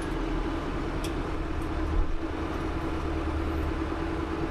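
Branson compact tractor's diesel engine running steadily as it drives, with a light knock about two seconds in.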